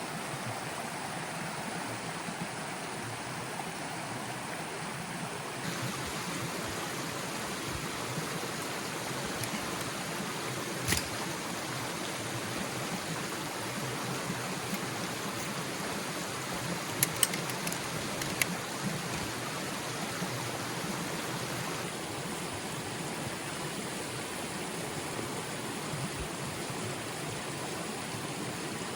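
Steady rushing noise of rain and running water, with a sharp knock about eleven seconds in and a few quick clicks around seventeen to eighteen seconds.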